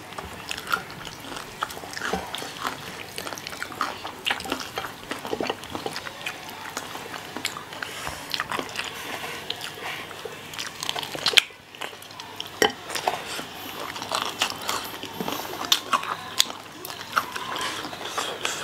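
Close-miked biting and chewing of fried chicken wings by two people: many small crunches, clicks and wet mouth sounds all through. One sharp, louder click about eleven seconds in.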